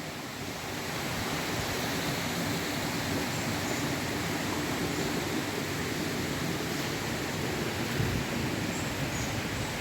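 Steady rush of water from a waterfall running full, an even hiss without a beat. A soft low bump about eight seconds in.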